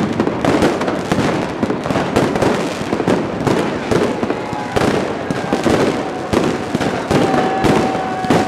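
Fireworks going off overhead in a dense, continuous run of bangs and crackles. A steady high tone sounds over them near the end.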